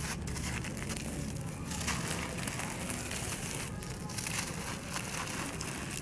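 Dry sandy clay lump being crushed and crumbled by hand: a dense, continuous gritty crackle of grains breaking, with crumbs and dust trickling onto a heap of loose crumbled clay.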